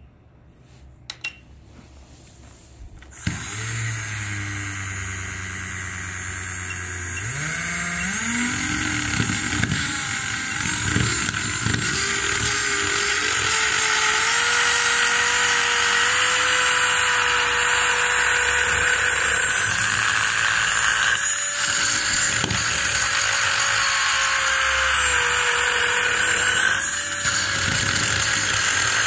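A toy's small electric motor, driven at high voltage, starts about three seconds in with a hissing, buzzing whine. Its pitch climbs over several seconds as it speeds up, then holds high and steady.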